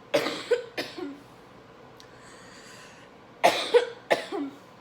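A person coughing in two short fits of about three coughs each, the second fit a few seconds after the first.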